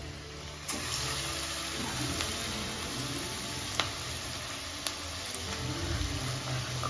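Besan (gram-flour) fritters deep-frying in hot oil in an iron kadai: a steady sizzle that starts about a second in, with a couple of sharp pops.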